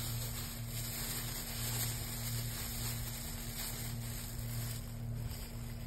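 Steady low hum over a faint even hiss, with no distinct handling sounds: room tone.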